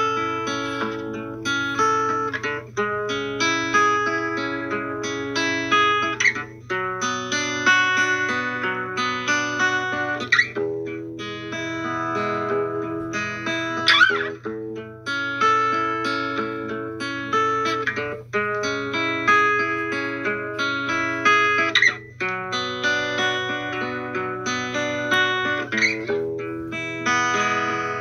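Background music: a plucked guitar tune repeating in short phrases, over a steady low hum.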